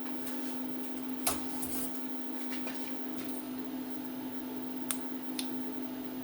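Steady electrical hum in a small shop, with a few light clicks and taps of hands working a freshly engraved tag loose from its fixture.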